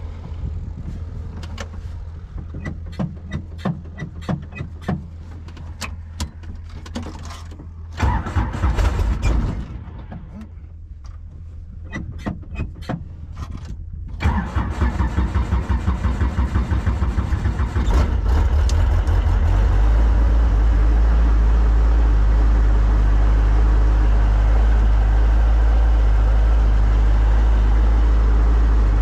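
Small helicopter's engine being started: clicks, then a burst of cranking about eight seconds in. The engine catches about fourteen seconds in, running with a pulsing beat, and settles into a steady low drone.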